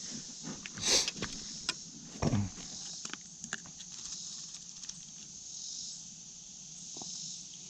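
Insects chirring steadily in a high, even drone, with scattered clicks and a couple of brief rustles from close handling about one and two seconds in.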